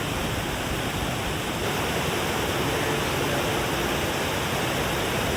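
Steady rushing of Wahkeena Falls, a waterfall, falling water heard as an even, unbroken roar.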